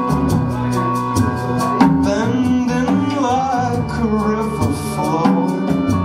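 Live acoustic band playing: fiddle, acoustic guitar, upright bass and drums keeping a quick, steady beat.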